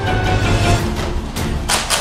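Background music with a low steady bass. Two short, sharp noisy hits land near the end.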